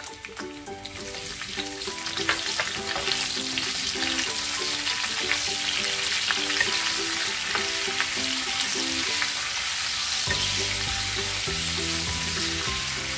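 Sliced red onions sizzling in hot oil in a wok, the frying hiss building about a second in as they go into the pan. A wooden spatula stirs them, with light scraping and taps against the pan.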